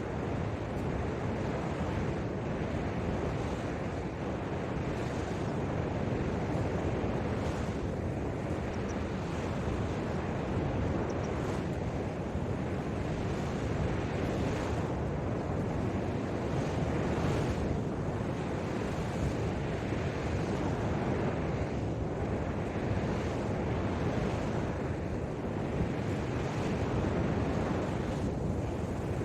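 Ocean surf washing onto the beach, steady with swells every two to three seconds, with some wind buffeting the microphone.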